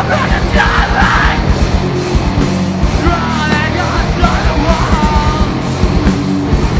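A rock band playing live and loud: electric guitar, bass guitar and a driving drum beat, with a vocalist singing and yelling over the top from about halfway through.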